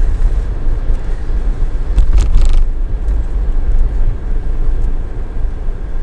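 Car cabin road noise while driving: a steady low rumble of tyres and engine. About two seconds in there is a brief, sharper crackling noise.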